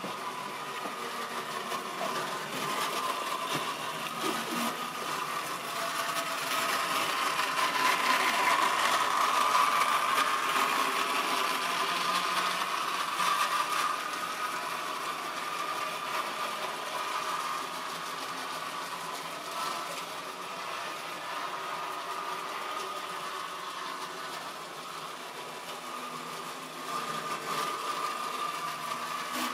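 Model railway locomotive's small electric motor whining steadily as it hauls a long train of tank wagons round the track, with a light clatter of wheels on the rails. The whine swells for a few seconds about a third of the way in, then settles.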